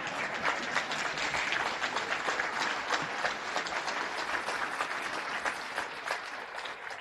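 Audience applauding, many hands clapping steadily, fading out near the end.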